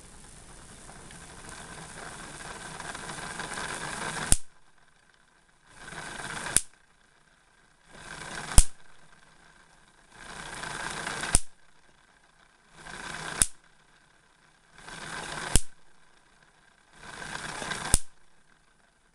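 Homemade Wimshurst machine running, a hiss building up before each of seven sharp spark cracks across its ball gap, about one every two seconds. The first crack comes about four seconds in.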